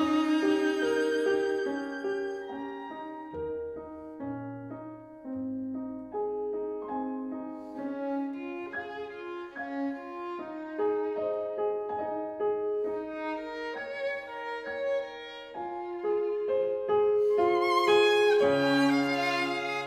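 Instrumental background music: a slow violin melody over a lower accompaniment.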